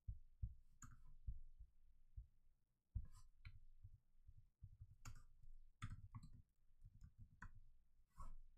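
Faint computer keyboard and mouse clicks: about eight scattered key presses and clicks over soft low thuds, otherwise near silence.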